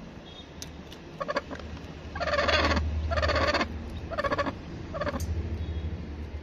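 Broody hen making a few short harsh calls, with two longer, louder ones near the middle, over a low steady hum.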